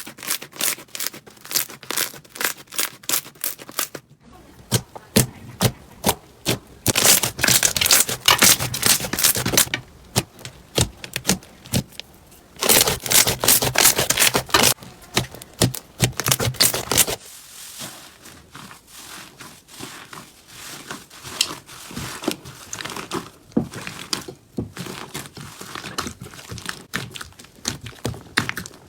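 Slime being squeezed and worked by hand, giving dense runs of crackling clicks and pops, in several short segments that change abruptly about four, twelve and seventeen seconds in.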